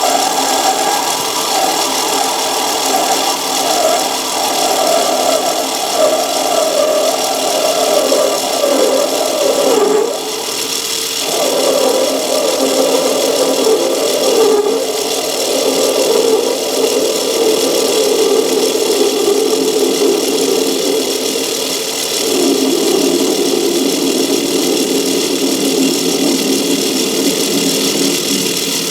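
Myford ML7 lathe running under power while a parting tool in a rear tool post cuts into bar stock: a steady machine hum under a wavering tone that shifts in pitch, breaking off briefly about ten seconds in and settling lower later on. The cutter is set a little too high.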